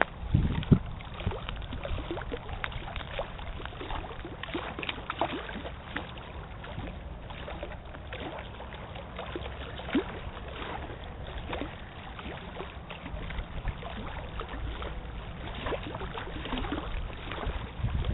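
Small wind-driven waves lapping and splashing in quick irregular slaps, over a low rumble of wind on the microphone.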